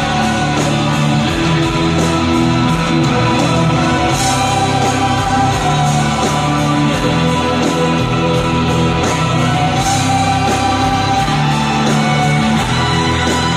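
Live rock band playing loud and steady: keyboards and electric guitar over drums, heard amplified from the crowd.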